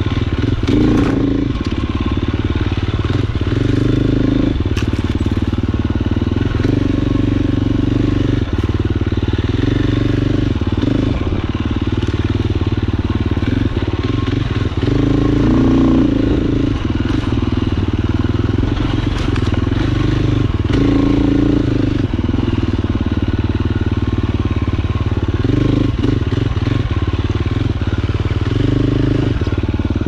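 KTM 350 XC-F dirt bike's single-cylinder four-stroke engine running, swelling in louder surges every few seconds as the throttle is opened and eased off, with a few sharp clicks.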